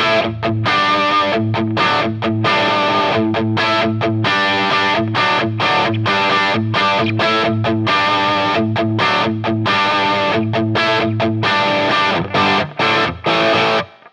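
Distorted electric guitar riff with rhythmic chopped chords, played through the TC Electronic Impulse IR loader's speaker-cabinet impulse response. It breaks into short stabs with gaps near the end and stops abruptly.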